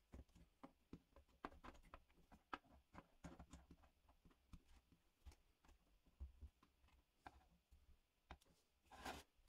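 Near silence with faint, irregular clicks and light knocks, and a short scraping rustle near the end.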